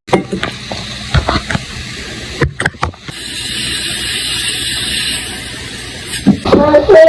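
A few scattered clicks and knocks, then from about three seconds in a steady hiss that lasts about three seconds.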